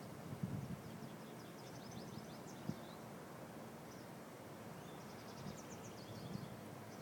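Outdoor ambience: a small bird sings two quick trills of rapid, high chirps, about a second in and again near the end, over a low wind rumble, with a single sharp tap a little before halfway.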